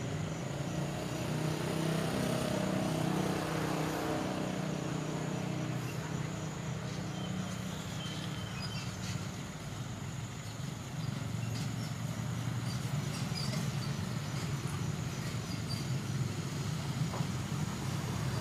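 Road traffic crossing a railway level crossing: car and motorcycle engines running steadily, with one vehicle's engine passing close in the first few seconds.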